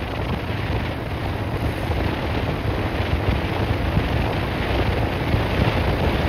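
Wind buffeting the microphone of a Hero Splendor motorcycle ridden at about 70–75 km/h on a top-speed run, with the bike's single-cylinder four-stroke engine running under it. The noise grows slightly louder.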